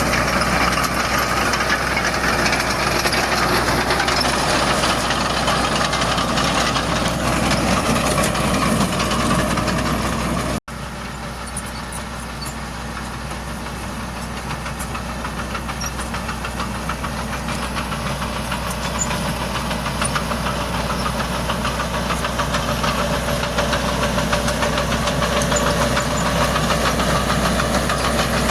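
Heavy diesel engine running with a steady clatter. About ten seconds in it breaks off for an instant, then comes back quieter and slowly grows louder again.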